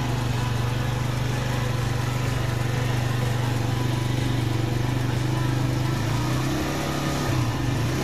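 Benzhou four-stroke scooter engine idling steadily, its note wavering slightly near the end.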